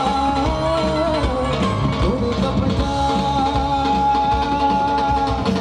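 Live band playing over a PA: electric guitar, drums and dhol, with a long note held through the second half.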